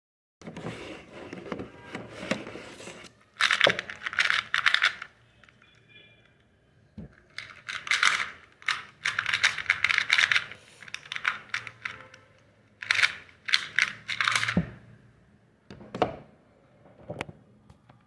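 Plastic 2×2 Rubik's cube being turned fast by hand in a speed solve: rapid clicking and clacking of the layers, in bursts of quick turns broken by short pauses, ending in a few single clicks.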